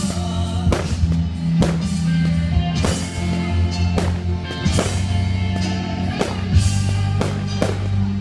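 Music with a steady drum beat, about five beats every four seconds, over sustained deep bass notes.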